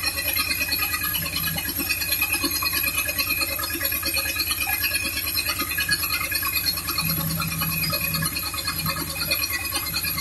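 Engine of a 1974 Condor II motorhome idling steadily with its engine cover off, a busy, even mechanical rattle, running pretty good.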